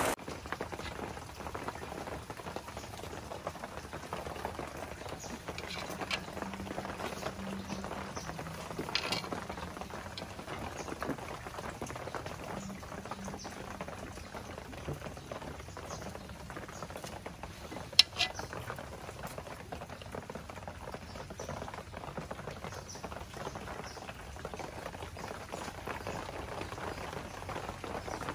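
Light crackling, scraping and clicking of hand food preparation: metal spoons working sticky rice in a metal pot and banana leaves being handled, with one sharp click past the middle.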